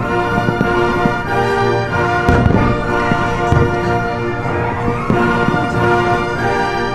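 Orchestral music with brass and timpani, loud and steady, with held chords throughout.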